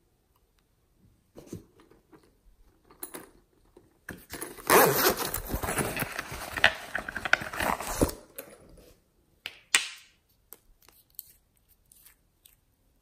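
Close handling noises: a few soft clicks, then about four seconds of loud rustling and scraping as a padded plastic unicorn pencil case is handled, then a couple of sharp clicks and some small ticks.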